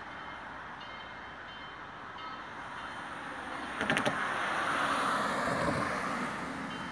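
Southern 4501, a 2-8-2 steam locomotive, approaching from a distance as a steady background noise. About four seconds in come a few sharp knocks, then a louder rush of noise that swells and fades.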